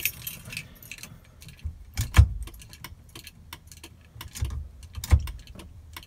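Keys jangling on the ignition key ring of a 1971 VW Beetle as the key is turned, with a run of sharp clicks from the switches on the steering column and a few louder knocks, about two seconds in and again near the end.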